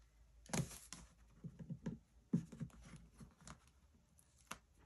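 Hands handling and pressing down paper and cardstock as a paper pocket is taped in place: a few soft, irregular rustles and light taps.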